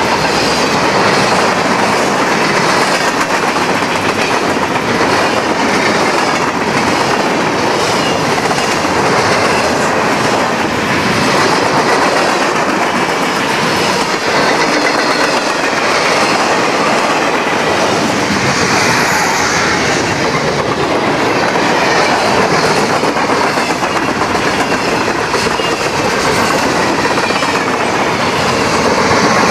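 Freight train of boxcars and tank cars rolling past at close range: a loud, steady rumble of steel wheels on rail, clicking over the rail joints.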